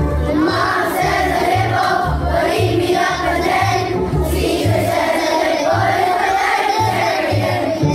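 Children's choir singing a melody together over an accompaniment with a steady bass beat.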